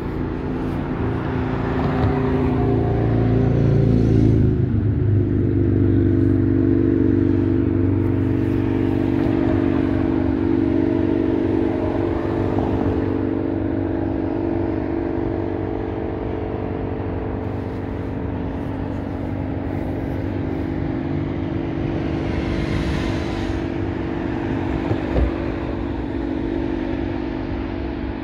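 Interstate highway traffic: continuous tyre and engine noise of passing vehicles. About four seconds in, an engine note drops in pitch as a vehicle goes by, followed by a steady engine hum, with a brief thump near the end.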